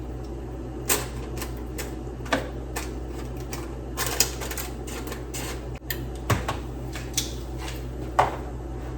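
Kitchen tongs clicking and tapping as salmon pieces are set into an air fryer basket: scattered sharp clicks, irregularly spaced, over a steady low hum.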